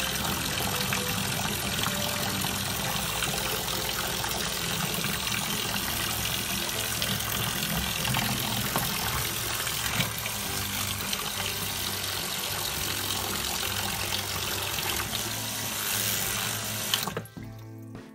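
A 12 V diaphragm spray pump running with a steady hum, its outlet hose jetting water that splashes into a tub of water. The pump stops suddenly near the end and the splashing ends.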